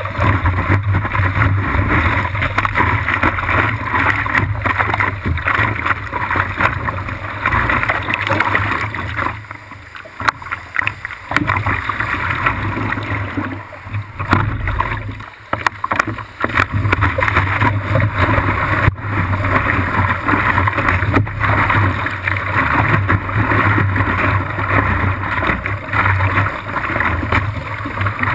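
Water rushing and splashing around the nose of a surfboard as it slides through small whitewater, picked up close by a microphone at water level on the board. It eases off briefly about ten and fifteen seconds in.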